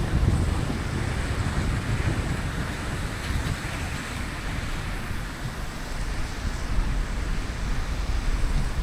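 Steady noise of a car driving on rain-wet streets: hiss of tyres and rain, with a low rumble of wind buffeting the microphone.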